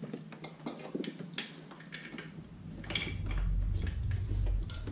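Light clicks and rattles of a wiring harness and plastic engine-bay parts being handled as the wire is fished down behind a car engine. A low rumble swells through the second half.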